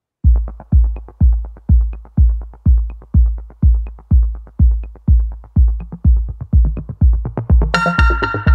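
Electronic background music: a steady kick-drum beat about twice a second, joined near the end by a bright synthesizer chord.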